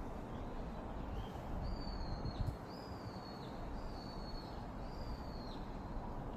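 A bird calling: four high whistled notes about a second apart, each held briefly and dropping in pitch at the end, over a steady low rumble.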